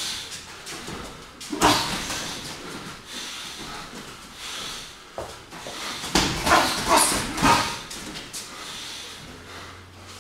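Boxing gloves landing punches during heavyweight sparring: a sharp hit about a second and a half in, then a flurry of hits around six to seven and a half seconds in, mixed with short vocal sounds.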